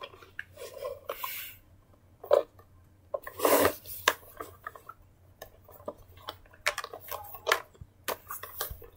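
A pink plastic toy convertible and a plush toy being handled: scattered plastic clicks and taps with short rustles as the toy's seatbelt strap is fastened.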